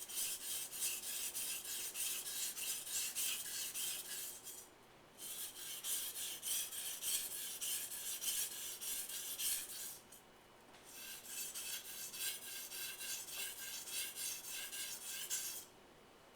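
Kitchen knife edge being ground on a wet 1000-grit whetstone: quick back-and-forth scraping strokes in three runs, with two short pauses between them.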